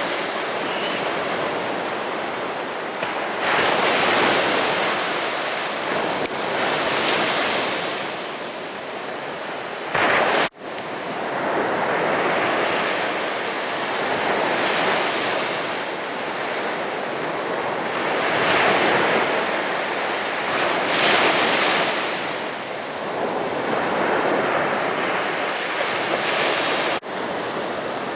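Sea waves breaking on a beach, the surf swelling and easing every few seconds. The sound cuts off abruptly twice, about ten seconds in and near the end.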